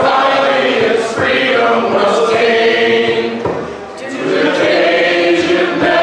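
Two women and a man singing a song together unaccompanied, in sustained held notes, with a short dip between phrases a little past the middle.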